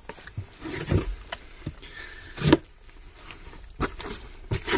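Wooden stick stirring cement powder into water in a mixing bucket: irregular scraping strokes against the bucket as the wet cement paste is worked together.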